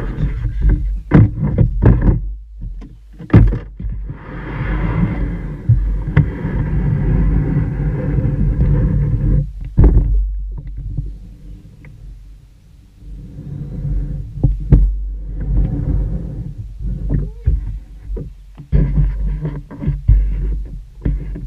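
Kayak paddling on calm water: paddle strokes splashing, with scattered sharp knocks and a steady low rumble on the microphone.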